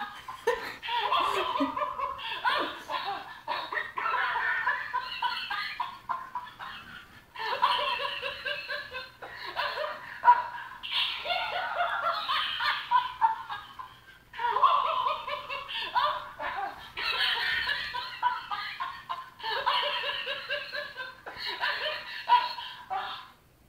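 Electronic laughing plush monkey toy playing its recorded laughter through a small speaker, in bouts of laughing with short breaks in between.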